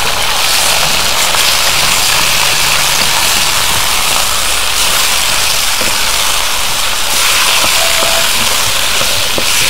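Pieces of free-range rooster sizzling loudly and steadily in hot oil in a steel wok, freshly added to the pan. A wooden spatula stirring them gives a few light knocks against the wok.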